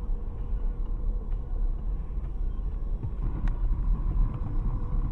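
Steady low rumble of a car on the move, as a dashcam picks it up: road and engine noise, with a few faint ticks.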